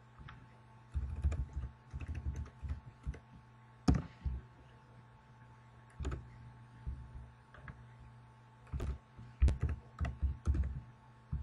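Keystrokes on a computer keyboard: scattered clicking in short runs, with the densest, loudest run near the end as a search word is typed.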